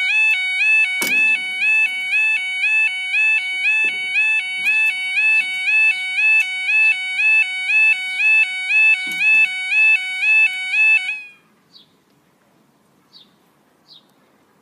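Level crossing's two-tone warbling 'yodel' alarm sounding as the barriers come down, stepping between two pitches about three times every two seconds to warn of an approaching train, then cutting off suddenly about eleven seconds in. A few sharp knocks sound during the alarm, and faint short chirps follow it.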